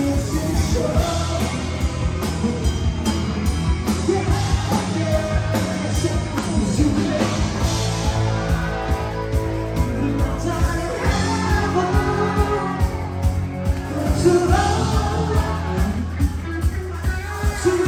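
Rock band playing a song live, a singer over drums that keep a steady beat.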